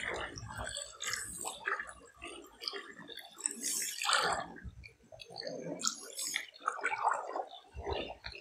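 Small waves lapping and gurgling among shoreline rocks, in irregular splashes of varying loudness.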